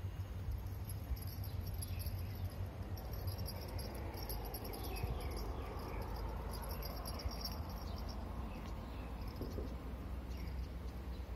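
Insects trilling in repeated high-pitched bursts over a steady low rumble.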